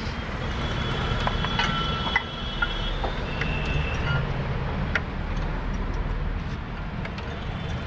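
A few light metallic clicks and knocks as the Hyundai i10's front steering knuckle and brake disc are worked off the driveshaft's splined end. Underneath is a steady low background rumble.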